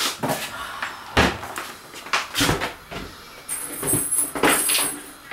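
A few sharp knocks and thuds of household handling, like cupboard doors or drawers shutting. The heaviest comes about a second in and again about two and a half seconds in, with lighter ones after.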